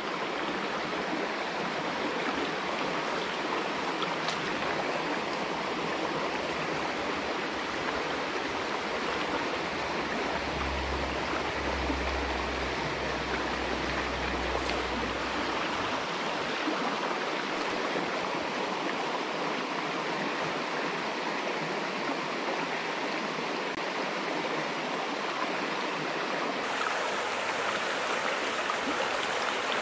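A small rocky stream running steadily over stones in a shallow riffle, a tributary of the West Branch Delaware. A low rumble sits under it for about five seconds near the middle.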